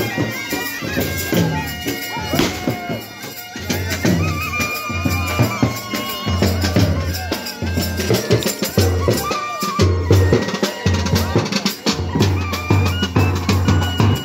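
A procession band playing: a reedy wind instrument carries a wavering melody over repeated drum beats and cymbal clashes.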